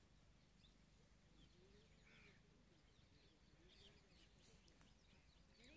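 Near silence: faint open-air background with a few faint bird chirps and faint distant wavering calls.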